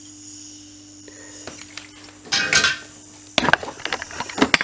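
Faint steady hum during soldering on a TV's power board, then a short rush of noise and a quick run of small clicks and metallic clinks from the board, tools and the TV's metal chassis being handled.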